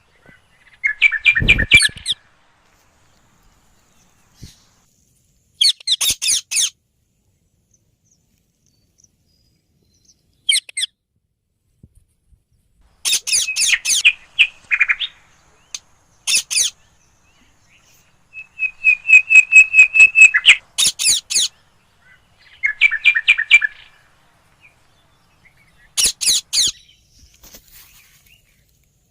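Green ringneck parrots (rose-ringed parakeets) calling in about eight short bursts of rapid, shrill repeated screeches, with silent gaps between the bursts. A brief low thump comes about a second and a half in.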